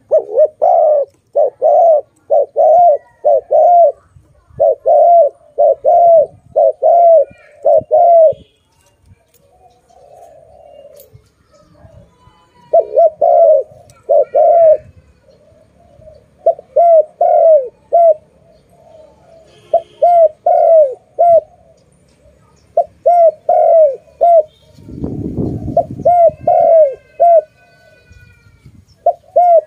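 A spotted dove coos loudly at close range, repeating its phrases in runs of several notes with short pauses between them. About 25 seconds in there is a second of low rumbling noise.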